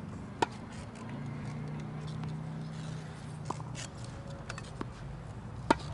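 Tennis ball struck by a racket: a sharp pop about half a second in and a louder one near the end, with fainter knocks between from the far side of the court, over a steady low hum.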